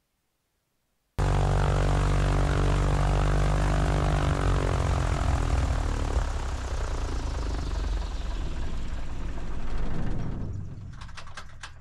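Light piston airplane's engine and propeller running loud and steady, starting abruptly about a second in and fading away near the end, followed by a few sharp clicks.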